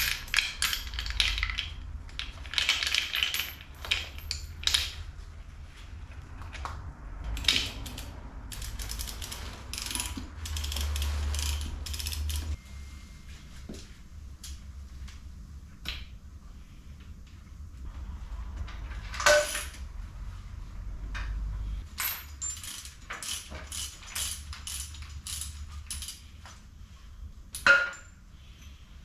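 Handling sounds from unwrapping and hoisting a motorcycle engine. Plastic wrapping rustles and things clatter for the first few seconds, then scattered metal clicks and knocks follow. Near the end comes a run of regular clicks, about two a second, like a hoist's ratchet.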